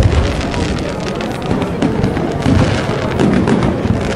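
Aerial fireworks display: a deep boom right at the start, then dense crackling from bursting shells, with further low booms through the middle.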